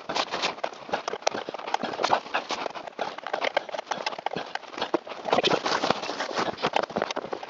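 Rapid, irregular clicking, knocking and rattling of hand tools and parts being handled while the blower motor resistor and its wiring are mounted back in under the dashboard.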